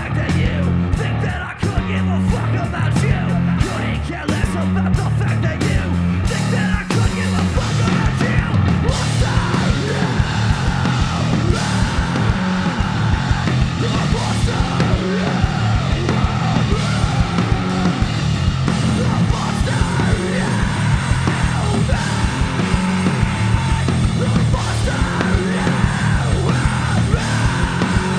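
Live rock band playing loud, with a yelled vocal over electric guitar, bass and drums.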